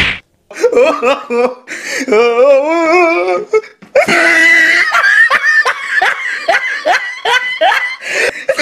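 People laughing hard. There is a quavering laugh about two seconds in, then from about four seconds on a long run of rapid, repeated bursts of laughter.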